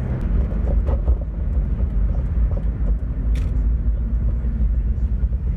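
2001 Ford Mustang running through its new aftermarket exhaust: a steady, deep rumble.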